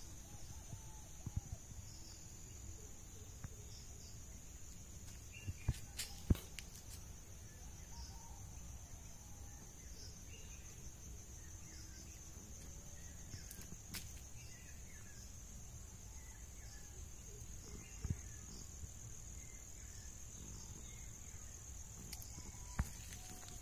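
Faint, steady high-pitched insect trill that holds one unbroken note, over a low rumble, with a few sharp clicks scattered through it.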